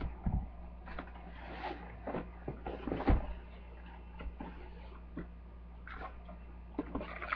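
Scattered small knocks, clicks and rustles of sewing-kit items and their packaging being handled and packed into a container, the loudest knock about three seconds in, over a steady low electrical hum.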